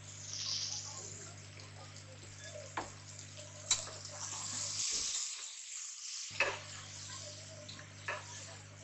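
Vegetables frying with a soft sizzle in a pressure cooker as a metal spoon stirs them, the spoon knocking against the pot four or five times.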